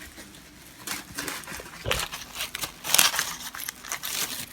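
Bird toys being handled: irregular crinkling, scraping and light clattering, starting about a second in.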